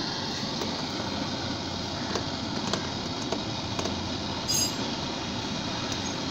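Steady background noise with a few light clicks and one short clink about four and a half seconds in, as a car's plastic front bumper is handled and pressed into place.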